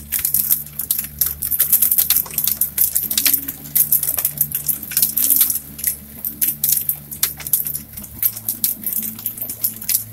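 Hailstones pelting a window and the house, a dense, irregular rapid clatter of sharp ticks with rain behind it, heard from indoors behind the glass.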